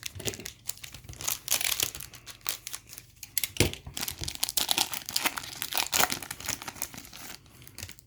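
Plastic wrapper of a trading card pack being torn open and crinkled in the hands, a dense irregular crackle that stops shortly before the end.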